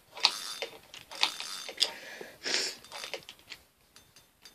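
Baitcasting reel being cranked by hand, winding fishing line onto its spool in uneven spurts of clicking and rustling that stop a little before the end.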